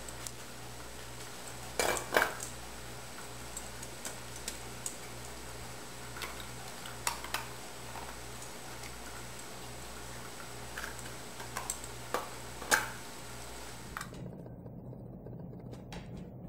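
Metal muffin tin and balls being nudged about by a dog's nose: scattered clinks and knocks, the loudest about two, seven and twelve seconds in, over a steady low hum.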